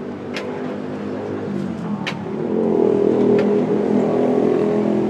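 A motor vehicle's engine running and growing louder about halfway through, with a few sharp metallic clinks over it.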